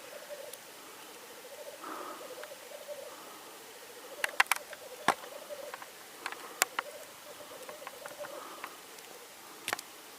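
Black grouse cocks bubbling, the continuous low pulsing coo of the spring display song, broken by several short sharp clicks, the loudest about four to five seconds in and again near the end.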